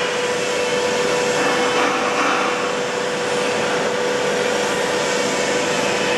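PE blown-film extrusion machine running: a steady rush of blown air with one steady mid-pitched hum.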